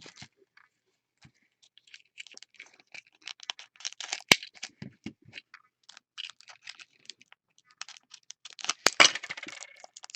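Small taps, clicks and rustles of trading cards and packaging being handled on a table, with a sharp click about four seconds in and a louder rustle near the end.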